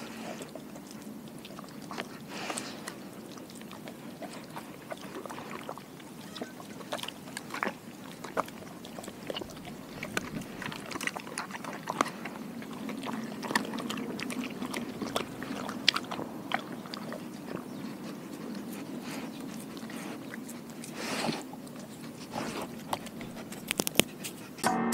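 A Doberman licking and chewing leftover raw food scraps off concrete: wet tongue smacks and irregular clicks of teeth, with a thicker cluster about 21 seconds in, then lapping from a glass water bowl near the end.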